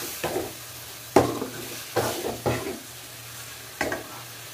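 A metal ladle scraping and knocking against a metal pan as boneless chicken pieces are stir-fried in spiced oil, over a steady sizzle. There are about six strokes; the loudest comes about a second in.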